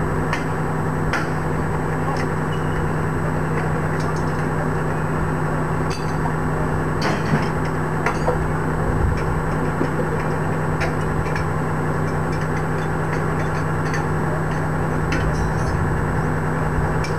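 A vehicle engine idling steadily, with scattered sharp metallic clinks and knocks from men working on an M113 armoured personnel carrier's steel track.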